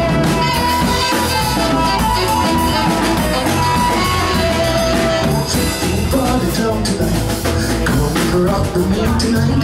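Live band playing Latin rock: saxophone holding notes over electric guitar, bass guitar, keyboard and drum kit.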